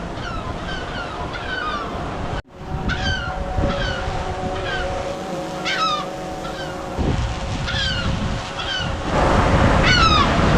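Birds calling again and again in short, sharp falling calls, about one or two a second, over a haze of wind and surf noise. A steady hum runs through the middle. The sound breaks off for a moment about two and a half seconds in.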